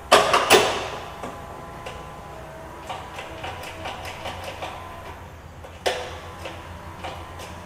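Mechanical clicks and clunks from the controls of a 1960 Oliver OC-46 crawler as a start is tried: two loud clunks at the start, scattered light clicks, then another sharp clunk near 6 seconds. The starter does not turn the engine over, because the starter relay is not pulling in.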